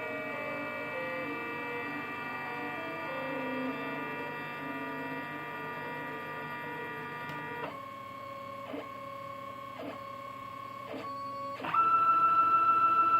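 Stepper motors of a 4-axis CNC hot-wire foam cutter whining as the axes move, with several tones shifting pitch together. About two-thirds of the way in it settles to a single whine broken by short pauses about once a second. Near the end a louder, higher whine starts as the motors speed up.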